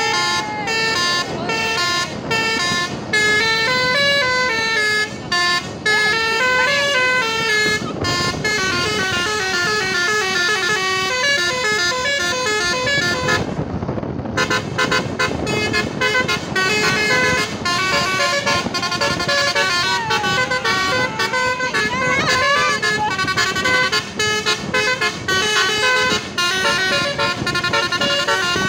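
Bus 'telolet basuri' musical air horn playing a long, fast melody of stepped notes, over the noise of the bus passing.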